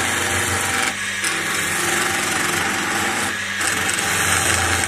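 Wood lathe running with a skew chisel cutting a spinning walking-stick blank: a steady motor hum under the hiss of shavings peeling off the wood. The cut eases off briefly twice, about a second in and again after about three and a half seconds, as the chisel is lifted and re-engaged.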